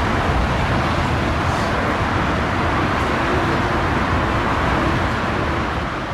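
Jet engines of a twin-engine widebody airliner running loud and steady as it rolls out just after touchdown, a deep rumble with a rushing hiss; the level eases a little near the end.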